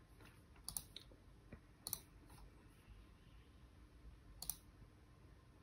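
A handful of faint, sharp clicks from someone working a laptop, starting a speed test and opening a window. Most fall in the first two seconds, with a couple more around four seconds in, over near silence.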